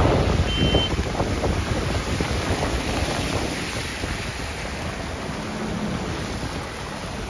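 Steady rushing road noise of a car driving on wet, slushy streets, with wind blowing on the microphone, gradually getting quieter. A short high beep sounds about half a second in.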